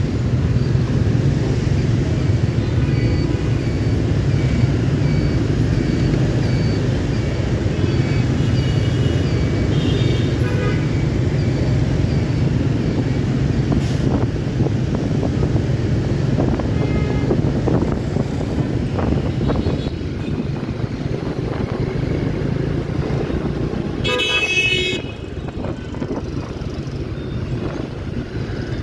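Dense motorbike and car traffic heard from a scooter in the flow: a steady rumble of engines and road noise, with vehicle horns tooting several times. The loudest is one honk about 24 seconds in. Earlier there is a run of short, evenly spaced beeps.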